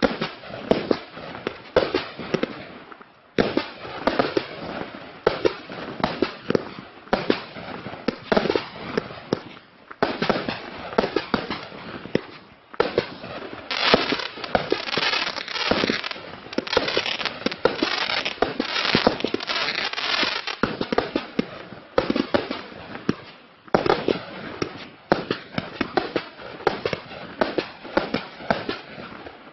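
Klasek 'Fireworks show 192', a 192-shot 25 mm compound fireworks cake, firing: a fast string of shots launching and bursting, with a few short breaks between runs. Through the middle the bursts run together into dense crackling.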